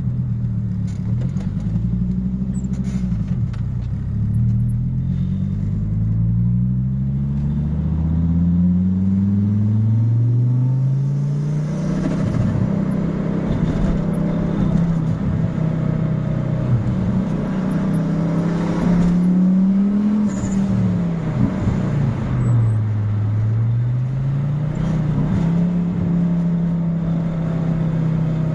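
Fiat Marea 2.0 20V turbo's five-cylinder engine revving, its pitch climbing several times over the first ten seconds, then running steadily. A little after twenty seconds the pitch rises briefly, drops, then climbs back and holds.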